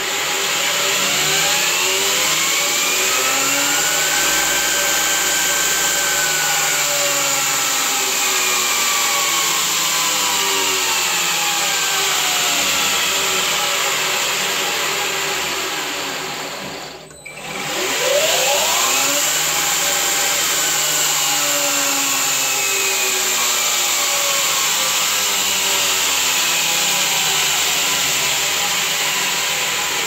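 Belt grinder's electric motor driven by an Invertek Optidrive variable-frequency drive. It spins up with a rising whine and runs steadily, then slows almost to a stop about 17 seconds in as the drive reverses its direction. It then spins up again and runs steadily.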